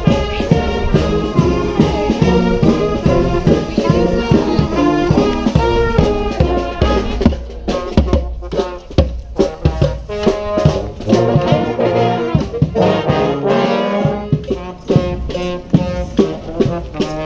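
Street brass band playing a rock anthem: trombones and trumpets over a strong, steady beat. The horns thin out briefly about eight seconds in, then come back in full.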